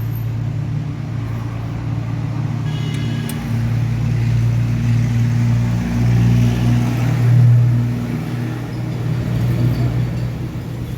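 A car engine running steadily, with a low hum that grows louder in the middle and eases off again.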